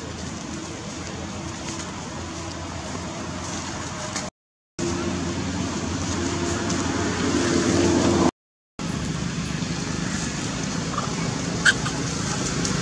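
Steady outdoor background noise, a low rumble with a hiss, broken by two short silent gaps about four and eight seconds in. A brief sharp chirp comes near the end.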